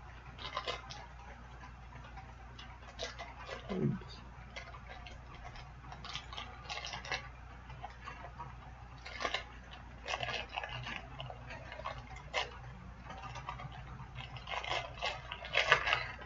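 Scattered small clicks, taps and rustles of hands handling plastic packaging and small plastic pieces, with a single soft thump about four seconds in.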